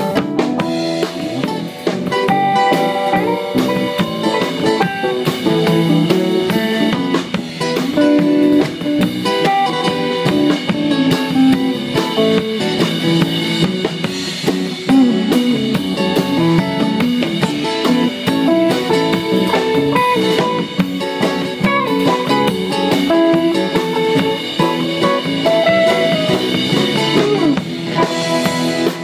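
Live band playing: acoustic and electric guitars over a drum kit, a steady full-band groove.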